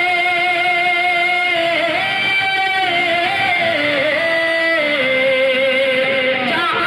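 A man singing a naat into a microphone, holding a long note and then moving the melody through several pitches before settling on a lower held note.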